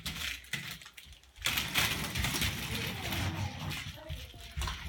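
Plastic wheels and frame of a child's toy doll stroller rattling and clattering as it is pushed across the floor. A few scattered clicks at first, then a busier, louder clatter from about a second and a half in.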